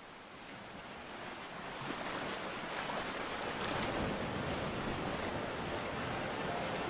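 Rushing sound of waves breaking, fading in and swelling steadily louder.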